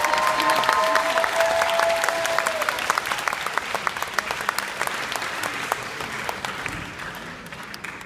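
Audience applauding, dense clapping that thins out and fades away near the end. A steady held tone sounds under the clapping for the first two or three seconds.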